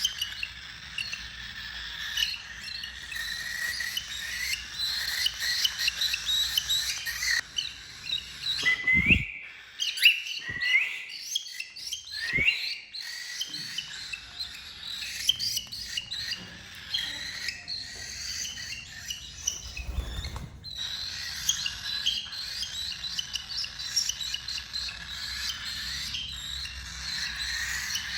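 Several cockatiels chirping and whistling together in continuous, overlapping chatter, with a few sharp knocks near the middle.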